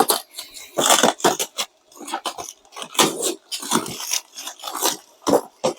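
Packaging and kit parts being handled and unwrapped: irregular rustling and crinkling with light knocks, several in quick succession.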